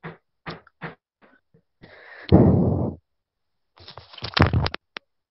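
A person's loud burst of breath blown into a close microphone about two seconds in, starting with a short hiss. A weaker, shorter burst of noise with a few clicks follows near the end.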